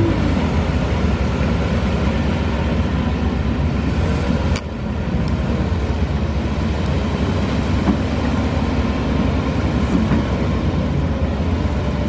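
Caterpillar D5R bulldozer's diesel engine running steadily under load while the dozer pushes soil with its blade, with a brief drop in level about four and a half seconds in.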